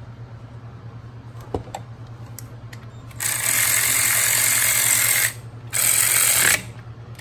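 Cordless power driver spinning a socket on an extension, running bolts into a diesel engine block in two bursts: about two seconds, then, after a short pause, just under a second. A couple of light tool clicks come before it, over a steady low hum.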